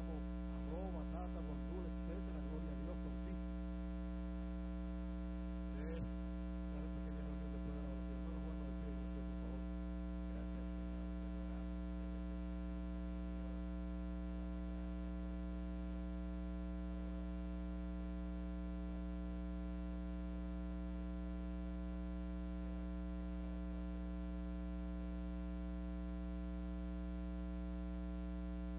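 Steady electrical mains hum with many overtones, unchanging throughout, with faint voices barely showing through it in the first several seconds.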